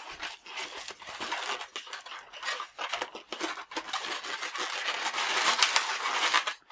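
Inflated latex modelling balloons (260s) rubbing against each other and against the hands as a balloon monkey is turned and its parts pressed into place: a scratchy rubbing noise with many small clicks, busier toward the end.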